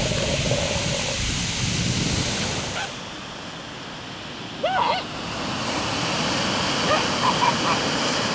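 Surf washing on a pebble beach as a steady rushing noise, briefly quieter about three seconds in. Short high-pitched calls cut through it once about five seconds in, with a few fainter ones near the end.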